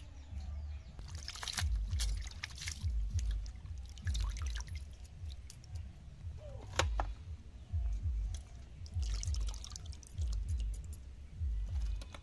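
Hands washing small fish in a steel bowl of water: irregular splashing, sloshing and dripping as handfuls are lifted, rubbed and dropped back, over low dull thumps.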